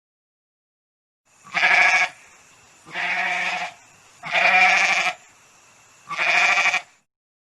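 A farm animal bleating: four wavering calls, each about half a second long, spaced about a second and a half apart.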